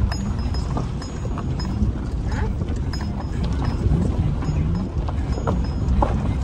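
Vehicle riding over a rough dirt road: a steady low rumble of engine and tyres, with irregular knocks and rattles from the bumpy ride.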